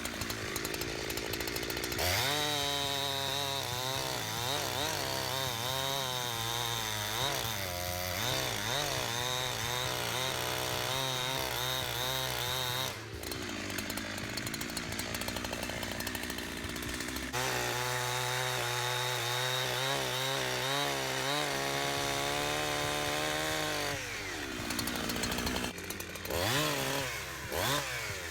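Holzfforma G372XP two-stroke chainsaw cutting through dead ash logs, its engine pitch sagging and recovering under load in two long cuts. Between the cuts it runs rougher and less evenly, and near the end it gives a few quick revs.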